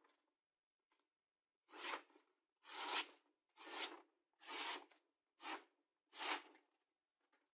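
A freshly sharpened knife slicing through a sheet of printed paper: six short cutting strokes, each under a second apart.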